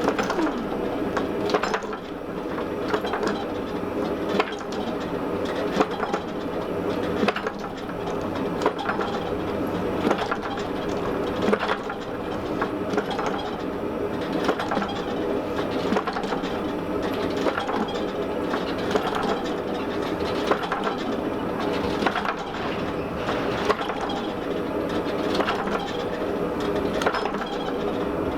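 Gas forge burner running steadily, with a clunk about every second and a half as a fly press with V-dies presses down on a hot wrought-iron bar to draw it out.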